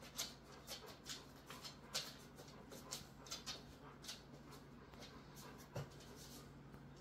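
Faint, irregular clicking of a husky's claws on a hardwood floor as it walks about, with one soft thump near the end.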